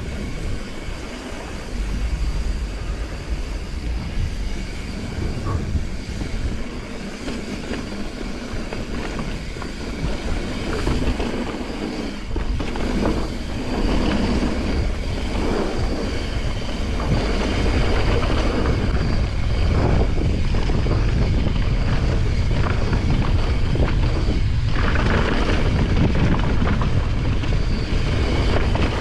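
Mountain bike descending a trail: tyres rolling over a wooden boardwalk and then gravel and dirt, with the bike rattling over bumps and wind rumbling on the microphone, louder in the second half.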